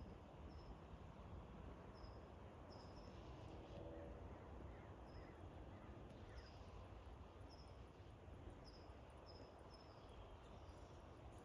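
Near silence: faint outdoor ambience with short, high chirps repeating irregularly, roughly once a second, over a low background rumble.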